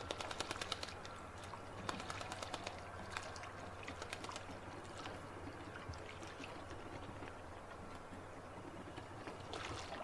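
Eurasian coot bathing, splashing water with quick flicks of its wings and body. The splashes come in fast runs of small spatters: a run at the start, more around two to four seconds in, and another near the end.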